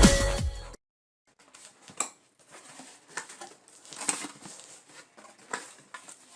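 Electronic music cuts off under a second in. After a short silence come scattered light taps, clicks and rustles of a cardboard box being handled and opened.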